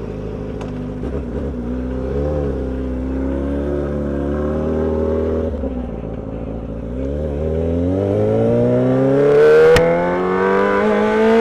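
Yamaha R6 sport bike's inline-four engine running at steady low revs with a brief throttle blip about two seconds in, then accelerating, its pitch rising steadily through the second half. A single sharp click near the end.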